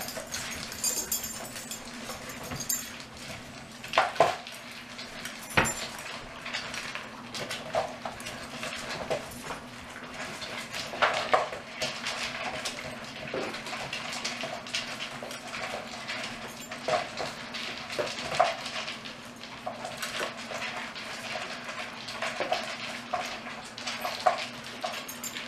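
Dogs and cats eating dry kibble from plastic slow-feeder bowls and a metal bowl on a tile floor. The sound is an irregular run of clinks, rattles and knocks as food and bowls are pushed about, over a faint steady hum.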